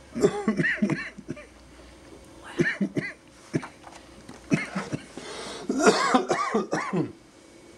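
A person coughing and clearing their throat in several bouts, the longest near the end.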